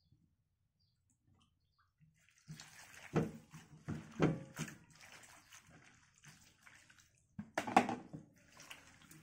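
Water sloshing and splashing in a wide metal tray as hands squeeze and wash chopped mustard greens, with a plastic dipper scooped through the water. It starts after a couple of seconds of near silence and comes in uneven bursts, the loudest near the end.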